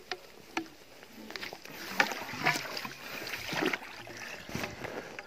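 Rustling through wet grass with irregular knocks and scrapes as a plastic tube eel trap is handled in marshy ground, busiest in the middle of the stretch.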